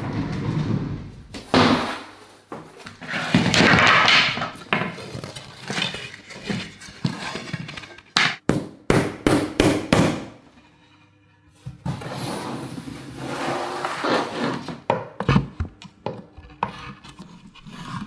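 Irregular knocks, thuds and rustling from materials being handled and worked, with a quick run of about six sharp taps a little past halfway.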